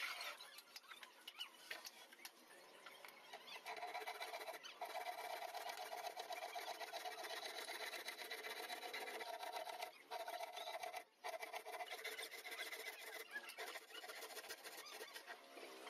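Small handheld power tool running with a steady whine as it works along the edge of a laminated MDF cabinet panel. It cuts out briefly about ten and eleven seconds in. Quieter knocks of the panel being handled come before it.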